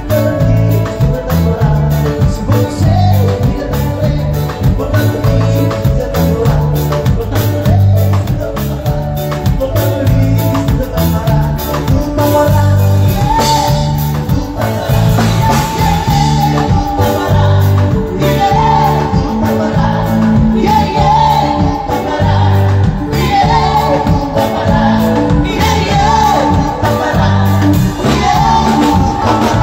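Live band playing upbeat dance music: a pulsing electric bass line with a steady beat under electric guitar and keyboard.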